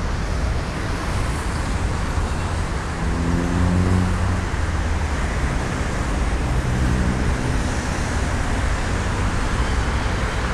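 City road traffic running steadily on rain-wet streets, with vehicle engines passing about three seconds in and again around seven seconds.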